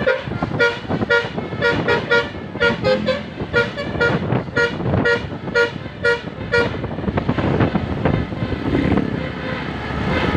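Basuri telolet horn, a multi-tone vehicle horn, playing a quick tune of short, clipped notes over road and engine noise. The tune stops about two-thirds of the way through, leaving only traffic noise.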